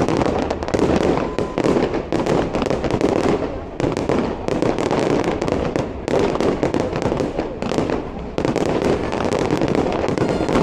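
Aerial fireworks bursting in a dense, continuous barrage of overlapping bangs, one report running into the next with no pause.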